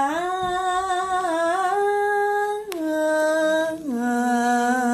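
A single voice holding long, wordless melodic notes in the style of Quranic recitation, each note held steady for a second or more and stepping down in pitch in stages.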